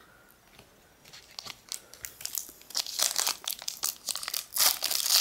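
Foil wrapper of a Pokémon Fossil booster pack crinkling as it is picked up and handled, starting about a second in and growing louder and denser. Near the end the foil begins to be ripped open.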